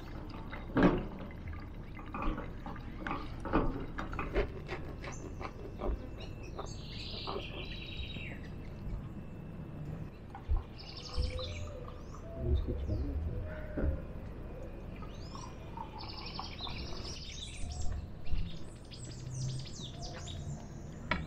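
Birds chirping and calling, in short runs of high chirps about seven seconds in and again from about sixteen seconds on. Scattered clicks and knocks of a utensil against a pan and dishes come mostly in the first few seconds.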